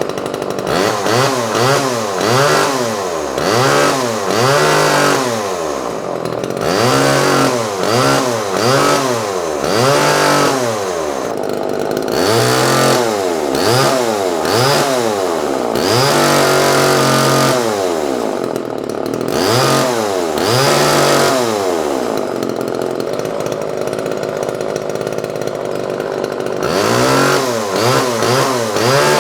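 Vintage Homelite XL Automatic two-stroke chainsaw running, its throttle blipped over and over so the engine revs up and falls back about once a second. A few revs are held longer, and there is a steadier stretch of running before the blipping resumes near the end.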